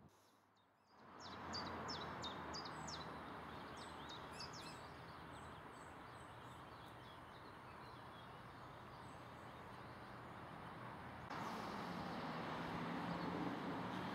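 A small bird calling a quick run of short, high, falling chirps over a steady outdoor hiss of wind and open countryside. The background hiss steps up abruptly about eleven seconds in.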